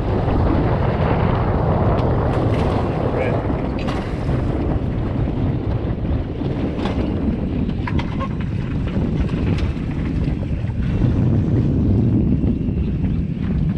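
Small fishing boat under way on a lake: a steady rush of wind buffeting the microphone over hull and water noise.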